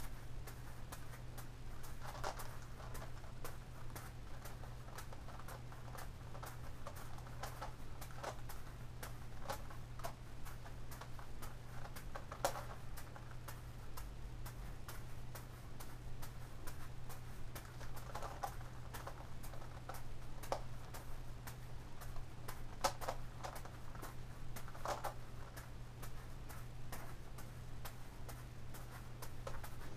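A Gigaminx puzzle clicking as its faces are turned: a steady patter of small clicks, with the soft slaps of juggling balls caught in a hand now and then. A steady low hum runs underneath.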